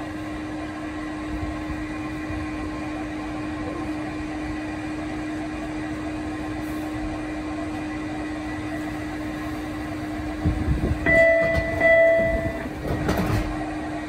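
MBTA Red Line subway car standing at a station with its doors open, its equipment giving a steady hum. About eleven seconds in, a door chime sounds twice, and then the doors slide shut with a knock.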